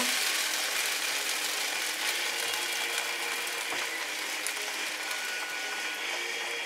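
Onions sizzling in a frying pan while double cream is poured in and a wooden spatula scrapes and stirs: a steady frying hiss with fine scraping clicks, easing slightly as the cream goes in.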